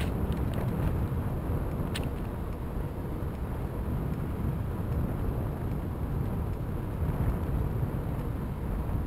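Bicycle riding along a crushed-stone trail: a steady low rumble of the tyres rolling over the surface, mixed with wind buffeting the microphone. A single sharp click about two seconds in.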